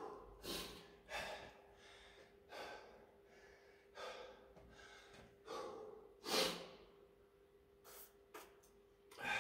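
A man breathing hard and gasping for air, out of breath after a long set of two-pump burpees, with about ten deep breaths at uneven intervals and the loudest one about six seconds in.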